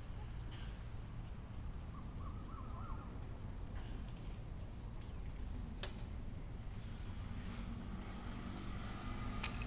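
Outdoor ambience: a steady low rumble, with a few faint bird chirps about two seconds in and a couple of sharp clicks.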